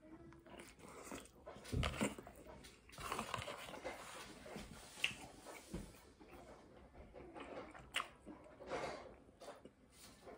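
A person biting into and chewing a mouthful of a chicken tortilla wrap close to the microphone: irregular wet mouth noises, smacks and small clicks.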